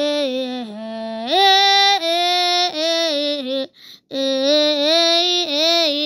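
A high voice singing long held notes without words, stepping up and down in pitch, with a short break in the middle.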